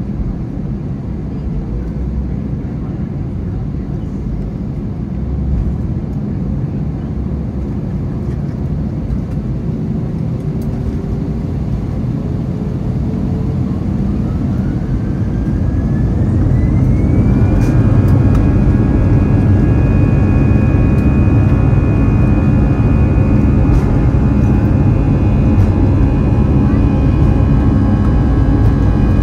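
Airbus A320 jet engines heard from the cabin over the wing, spooling up for takeoff. A low rumble gives way to a whine that climbs steadily in pitch for several seconds. It then settles into a louder steady drone with a held high tone at takeoff thrust.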